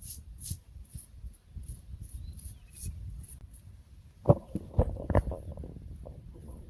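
Faint high ticks repeating about twice a second, then, from about four seconds in, a run of sharp knocks and clatter, the loudest near the start of the run.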